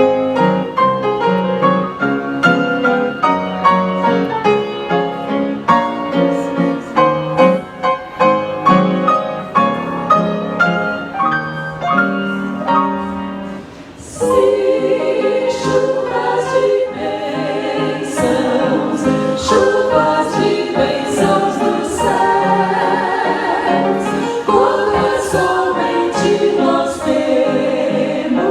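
A hymn played on piano, its notes struck one after another, then about halfway through a choir comes in singing with the piano accompaniment.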